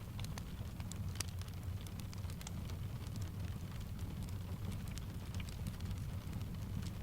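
Steady rain mixed with a wood fire crackling, its scattered sharp pops and ticks over a constant low rumble.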